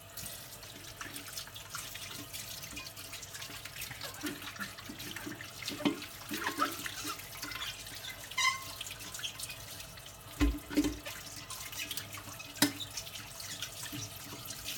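Tap water running over a chrome-finish kettle in a sink, rinsing off polishing paste, with a few clunks of metal against the sink.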